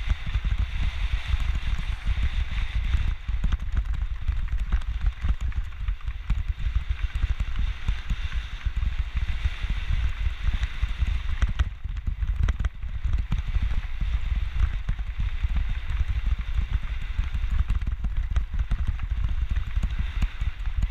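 Mountain bike riding down a dirt trail: wind buffeting the camera microphone in a constant, uneven low rumble, over tyres crunching on the dirt and the bike rattling over bumps, with a steady hiss underneath.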